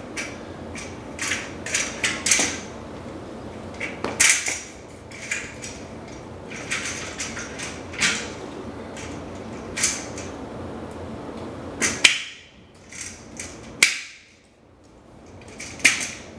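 Clips being snapped and slid onto a vertical blind's head rail: a run of irregular sharp clicks and short scrapes over a steady hiss. The hiss drops away about twelve seconds in, leaving a few more clicks.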